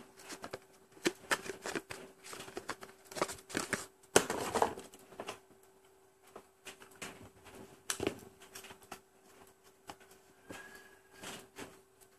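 Handling noise as a compact fluorescent bulb is taken from its cardboard box and screwed into a plastic lamp holder: irregular rustles, scrapes and clicks, loudest about four seconds in. A faint steady hum runs underneath.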